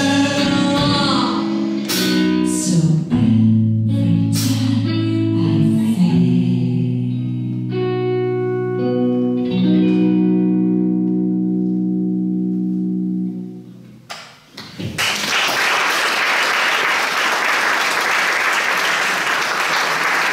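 Closing chords of a pop-rock song on an amplified red hollow-body electric guitar, with a woman's sung line in the first second or two; the last chord rings out and fades away about thirteen seconds in. After a brief lull, the audience applauds.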